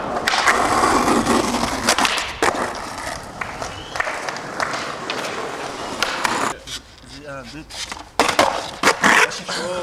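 Skateboard wheels rolling over rough asphalt and concrete, broken by sharp clacks of the board popping and landing, with a cluster of knocks near the end.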